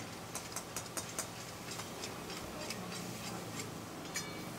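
Metal spoon clicking and scraping against a small black karahi pan as curry is stirred: irregular light clinks, several in quick succession in the first second or so, then sparser, with one sharper ringing clink near the end, over a steady low hum.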